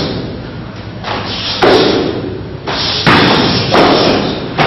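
A few heavy thuds of karate sparring, kicks and gloved blows landing, spaced roughly a second apart, each followed by a short echo.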